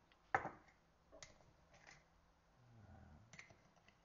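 Quiet kitchen handling noise: one sharp click about a third of a second in, then a few fainter clicks and knocks as containers and utensils are picked up and set down.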